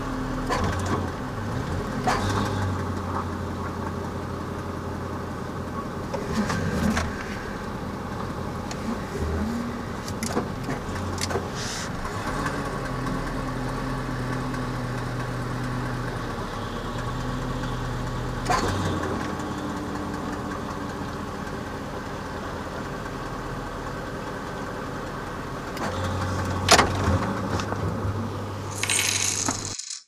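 Tow truck running down the road with a vehicle on its wheel lift: a steady engine and road drone whose pitch steps up and down a few times, with scattered rattles and clanks from the towing gear.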